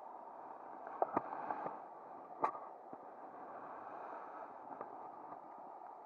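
River water rushing steadily over a riffle, with sharp knocks of handling about a second in and again a moment later, the loudest one about two and a half seconds in.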